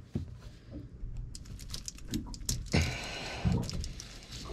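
Handling noise: a quick run of light clicks and a brief rustle, then a few dull knocks, as hands reach in to the holding tank's sending-unit wiring.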